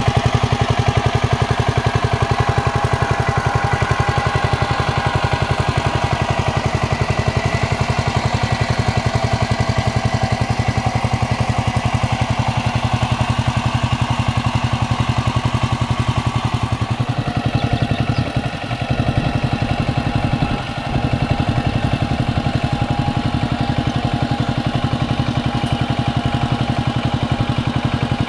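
Kamco power tiller's single-cylinder diesel engine running steadily with a fast, even chug while its wheels puddle a flooded rice paddy. A bit past halfway the sound turns duller, and it dips briefly twice soon after.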